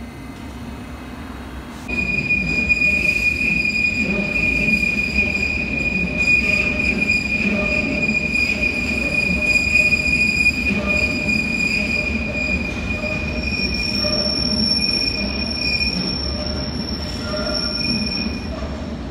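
London Underground train's wheels squealing on curved track over the low rumble of the train, the steady high squeal starting suddenly about two seconds in; a second, higher squeal joins past the middle.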